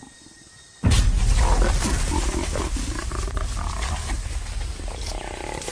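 A trapped female jaguar growling, starting suddenly and loudly about a second in with a deep rumble, then slowly fading.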